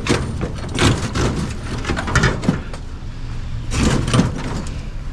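A few scattered knocks and rattles from scrap being handled, over a steady low vehicle hum; the loudest cluster of knocks comes about four seconds in.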